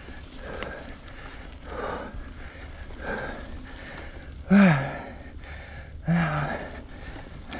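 A mountain biker breathing hard while pedalling: soft breaths about once a second, then two louder, voiced exhales that fall in pitch, one in the middle and one toward the end.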